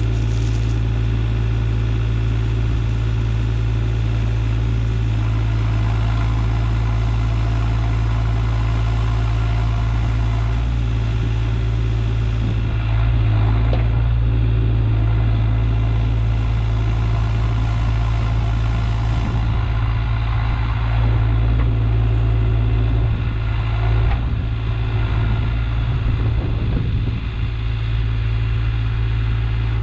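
Diesel engine running at a steady speed, with a constant low drone.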